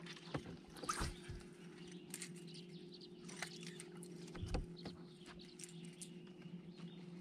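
Bow-mounted electric trolling motor humming steadily and faintly, with scattered light clicks and taps from fishing reels and tackle handling on the deck.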